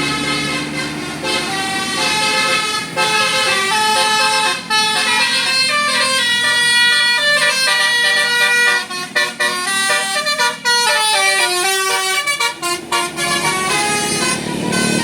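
Bus 'telolet' Basuri multi-note air horn playing a fast melody of short stepped notes, with a bus engine running underneath at the start and end.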